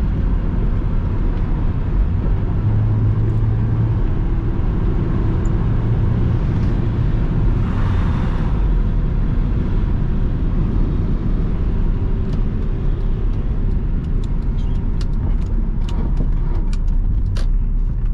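Cabin sound of a Honda S2000 with a JDM F20C four-cylinder engine driving with the soft top up: steady engine and road noise. In the last few seconds comes a run of sharp clicks, which the driver takes for traction control or ABS kicking on.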